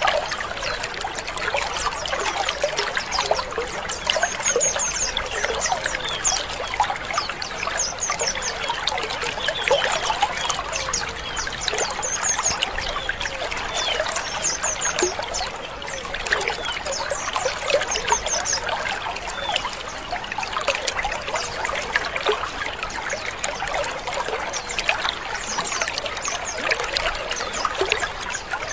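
A colony of white-eyes (pleci) chattering together: a dense, unbroken mass of overlapping short chirps and twitters, with small bursts of high chirps every second or two. These are the harsh "ngrik" calls of a wild-type colony.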